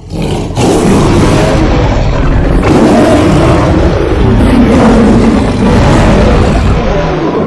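Saber-toothed leopard creature sound effect: one long, loud, rough roar-growl with a wavering pitch, lasting about seven seconds. It starts and stops abruptly.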